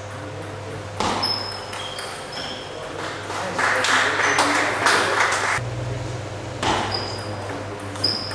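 Table tennis ball being hit back and forth in a rally, sharp ringing pings off the bats and table. A few hits come about a second in and more near the end, with a murmur of voices between them and a steady low hum in the hall.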